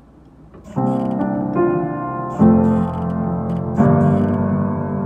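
Slow piano music starts about a second in: sustained chords, a new one struck roughly every second and a half.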